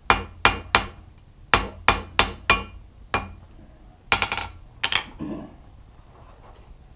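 Blacksmith's hand hammer striking red-hot steel tong stock on an anvil, about ten blows in quick uneven runs. He is smoothing out the tapered rein of the tongs.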